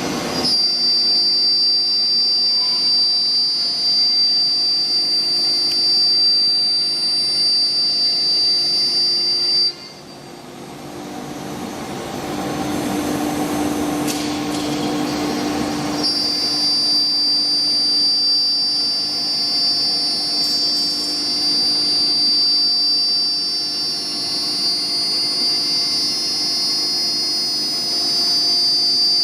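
BMG 1325 CNC router running, its spindle giving a high, steady whine over mechanical noise. The whine and level drop off suddenly about ten seconds in, a rougher noise builds back up, and the whine returns about six seconds later.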